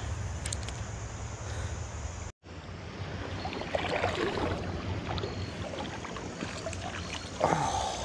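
Shallow creek water flowing and rippling steadily, with a low rumble of wind on the microphone. The sound cuts out completely for an instant about two seconds in.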